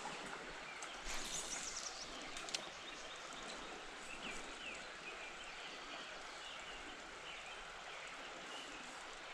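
Steady outdoor background hiss by a creek, with small birds chirping throughout and a quick run of high chirps about a second in.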